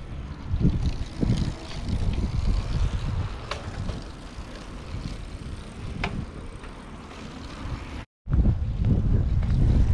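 Wind buffeting a bike-mounted camera's microphone, mixed with bicycle tyres rolling on the concrete of a skate bowl. The noise is an uneven low rumble that cuts out for a moment about eight seconds in, then comes back a little louder.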